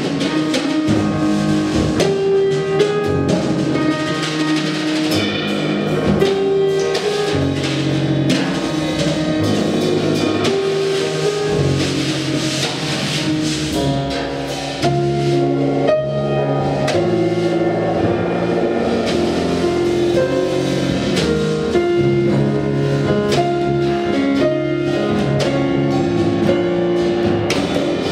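Live jazz piano trio playing: grand piano, double bass plucked by hand and a drum kit with cymbals, all sounding together.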